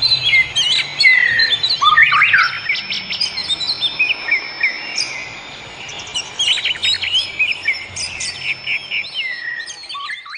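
Several forest birds calling and singing at once, a dense mix of quick chirps, trills and whistles, with a long thin steady high tone held twice. It grows fainter toward the end.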